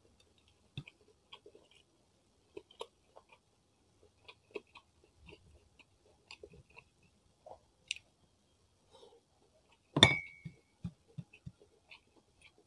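Close-up eating sounds: small wet clicks of chewing and of fingers squeezing and gathering rice. About ten seconds in comes one sharp clink with a short ring, followed by a few soft low thumps.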